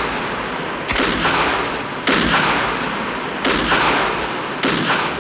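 Submachine-gun fire in four bursts, a little over a second apart, each starting suddenly and fading away over about a second.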